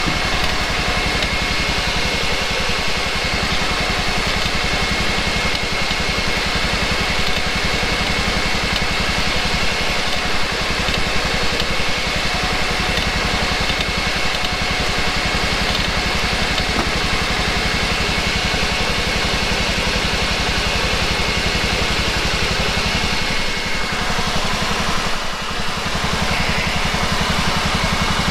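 A motor running steadily: a constant low drone of rapid, even pulses with a faint high whine over it, easing off briefly about three seconds before the end.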